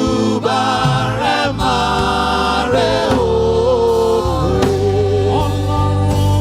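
Gospel worship song: a choir singing held, gliding notes over steady bass-heavy instrumental backing.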